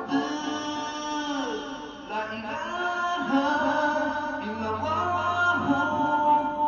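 A man singing a nasheed unaccompanied into a microphone, in long held notes that bend and waver in pitch.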